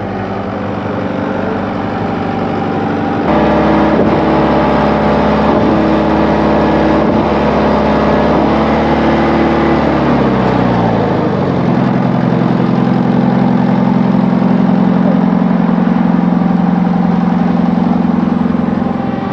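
Heavy truck diesel engine running loud. About three seconds in it steps up in level with a deep rumble, and about ten seconds in its pitch drops and it settles into steady running.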